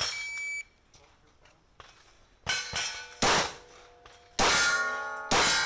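A shot timer gives one short, high beep. About two seconds later a Glock 19 9mm pistol fires four or five shots at steel plates. The hits clang, and the plates ring on after the later shots.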